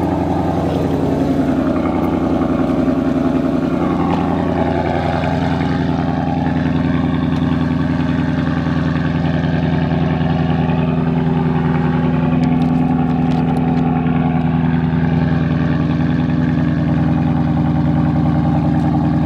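Car engine idling steadily, just after being started.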